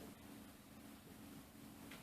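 Near silence: room tone with a faint steady low hum and one faint click near the end.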